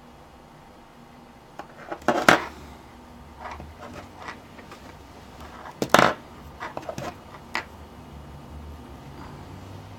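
Wire cutters snipping the power jack's two leads to different lengths, one short and one long: two sharp snips about two seconds and six seconds in, with lighter clicks of tool handling between.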